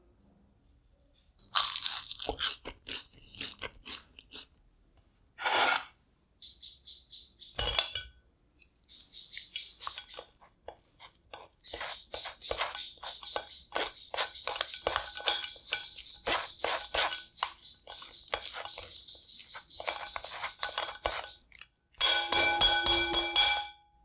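Raw potatoes being worked by hand on a kitchen surface: a run of quick, crisp strokes, with a few louder single knocks before it and a dense burst of clattering near the end.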